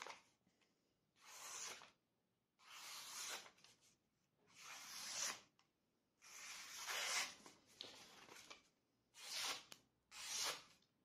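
N690 cobalt steel blade of a First Blood replica survival knife slicing through a sheet of paper, about seven separate short scraping cuts with pauses between. It is a paper-cutting test of how well the edge has held after a weekend of use without resharpening.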